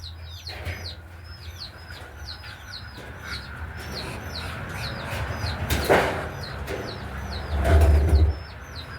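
A small bird calling over and over, short downward-hooked chirps about twice a second. A sharp crack sounds about six seconds in, and a loud low rumble follows near the end.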